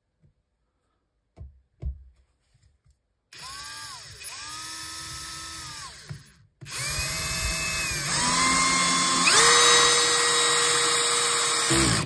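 Parkside Performance PABSP 20-Li C2 brushless cordless drill driver driving a wood screw. After a few light handling clicks, there is a short run of about three seconds. Then comes a longer run of about five seconds, and its motor whine steps up in pitch and loudness partway through.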